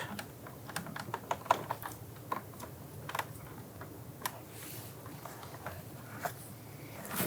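Scattered light clicks and ticks of a metal interior door-handle actuator rod being worked up and out of its plastic retaining clip, the rod binding at an angle in the clip.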